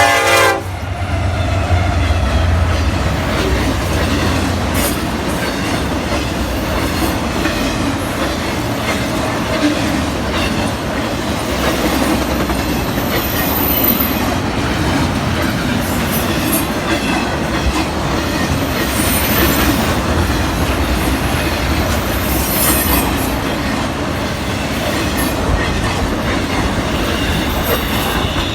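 Norfolk Southern intermodal freight train passing close by. Its horn cuts off about half a second in, and the locomotives' low rumble fades over the next few seconds. Then comes the steady clatter of the cars' wheels on the rails, with a few brief high-pitched wheel squeals.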